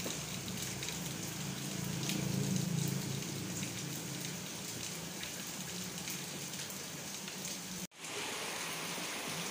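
Steady tropical rain falling, a continuous hiss with the patter of individual drops close by. A low rumble swells for about a second around two seconds in, and the sound cuts out for an instant near the end.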